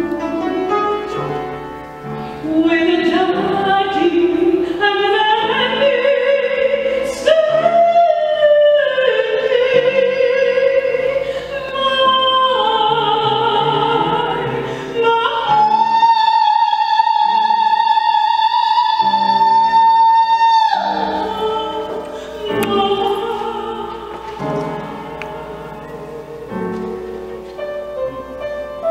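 A woman singing a gospel solo into a microphone, with instrumental accompaniment. A little past the middle she holds one long high note for about five seconds.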